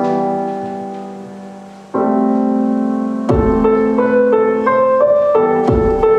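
Instrumental rap beat on piano: two held piano chords struck and left to fade, then about three seconds in a beat with deep thumps comes in under a short repeating piano melody.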